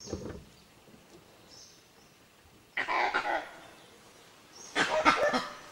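Animal calls: a short one at the very start, then two loud, harsh calls about two seconds apart, each well under a second long.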